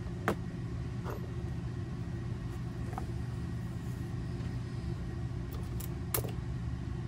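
A steady low mechanical hum runs under a few light knocks and clicks as hand tools and leather pieces are set down on a workbench cutting board.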